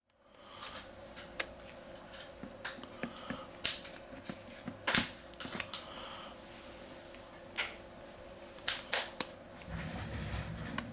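A thin opening pick prying and sliding along the seam of a Huawei P Smart 2019's back cover. Irregular small clicks and scrapes, a few sharper snaps among them, over a faint steady hum.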